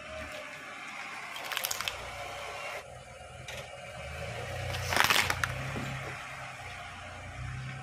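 Car tyre rolling over a small plastic toy helicopter, with a brief crackle of breaking plastic about one and a half seconds in; then a tyre crushing plastic bottles full of liquid, with a loud crunch and burst about five seconds in. The low rumble of the car runs underneath.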